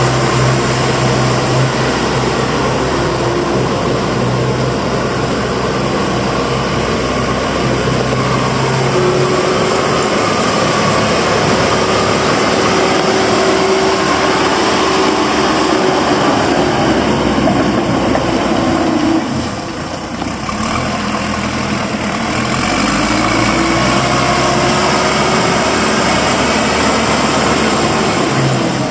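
Diesel engine of a 2005 JCB 214 backhoe loader running, its revs rising and falling. The engine eases off briefly about twenty seconds in, then picks up again.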